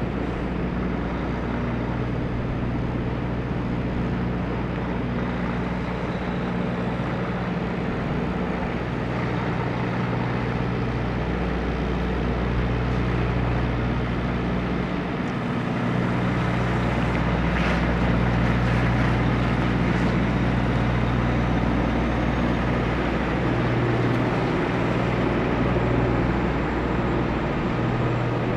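Diesel engine of a Kenworth semi-truck pulling a refrigerated trailer, running steadily at low speed through a turn and getting louder about halfway through as it comes closer.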